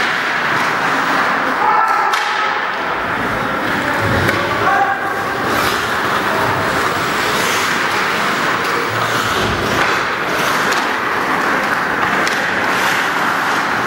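Ice hockey play: skates scraping the ice, with scattered knocks and thuds from sticks, puck and boards, and voices in the background.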